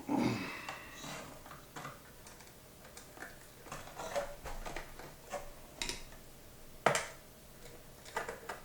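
Scattered small clicks and taps of hand work at screw terminals: a screwdriver turning terminal screws and stiff 12-gauge wire being bent and pushed into place. One sharper click comes about seven seconds in.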